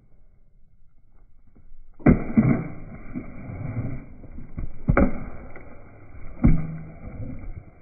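A sudden loud rumble with scuffing, starting about two seconds in, as a German shepherd crashes and rolls in dry dirt. Three sharp thumps come about two, five and six and a half seconds in.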